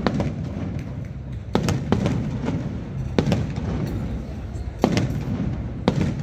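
Aerial fireworks bursting overhead: about six sharp bangs at uneven intervals, roughly one a second, over a crowd's chatter.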